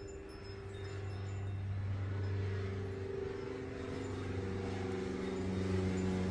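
Single-engine light propeller plane droning in a steady low tone as it climbs, growing steadily louder. Faint high tinkling of chimes near the start.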